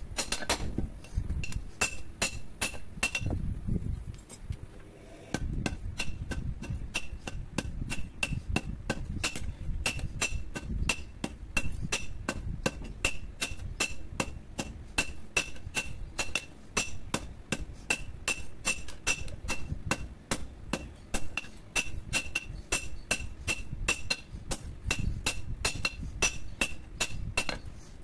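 Blacksmith's hammer striking a red-hot steel billhook blade, forged from a power tiller's plough share, on a steel anvil: a steady rhythm of about three to four blows a second, each with a bright metallic ring. The hammering stops briefly about four seconds in, then carries on.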